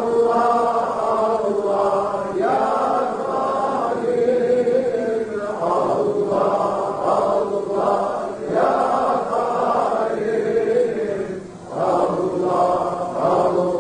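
Men chanting the Sufi loud dhikr (cehri zikir), repeating the name "Allah" in sung phrases, with a short breath pause near the end.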